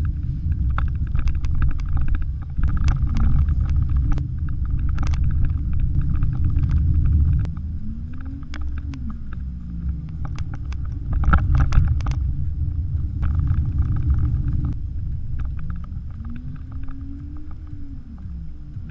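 Cabin sound of a Porsche Macan driving on a bumpy sandy dirt road: a steady low rumble from tyres and suspension with frequent sharp knocks and rattles. Twice a low engine note rises and falls.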